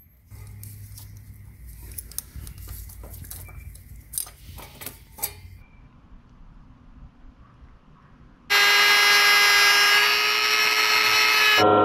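A few light metal clinks and rattles of parts being handled, then from about two thirds of the way in a handheld rotary tool with a cutoff disc grinding through the motorcycle's steel roller chain, a loud steady high-pitched whine.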